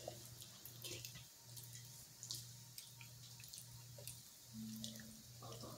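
Near silence: quiet kitchen room tone with a faint low hum and a few faint scattered clicks.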